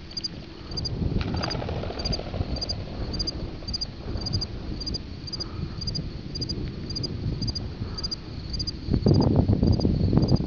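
A high, pulsed chirp repeating steadily about twice a second, over a low rumbling noise that grows louder near the end.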